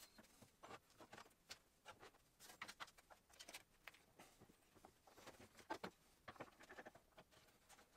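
Faint, scattered small taps and rustles of hands handling a wooden drawer face and playing cards against a wooden table frame.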